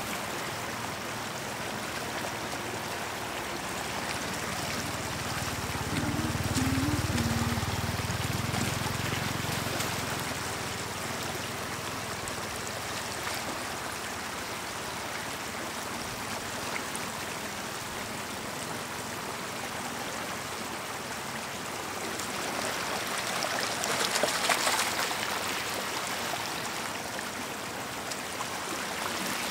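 Shallow water running and trickling over stones, with splashing about 23 to 25 seconds in as a wicker basket is worked through it. A low rumble rises and fades between about six and ten seconds in.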